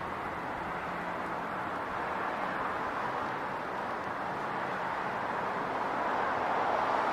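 City street traffic: a steady rush of passing cars and engines, swelling slightly louder toward the end.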